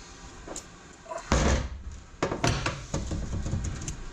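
Metal transmission parts being handled during a teardown: a loud clunk about a second in, followed by a few sharper knocks.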